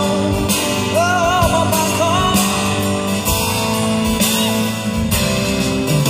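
Live pop-rock band playing in an arena, heard through the PA from the audience: electric and acoustic guitars, keyboard and drums, with a gliding melody line over them about a second in.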